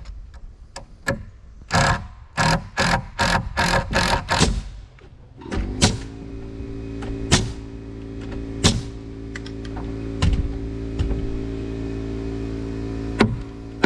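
About seven sharp strikes of nails being driven into framing lumber, about three a second, then a steady machine hum with a few single knocks.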